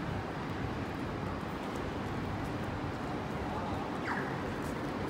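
Steady city street noise, a low hum of traffic and bustle, with a brief falling chirp about four seconds in.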